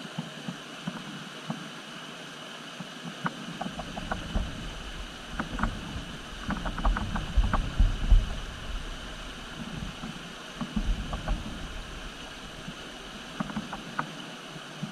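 Radio-controlled rock crawler running on a trail: a steady electric drivetrain whine and hiss, with scattered sharp clicks and knocks of tyres and chassis on rock. Heavier low rumbles come in from about four to nine seconds in and again briefly near eleven seconds.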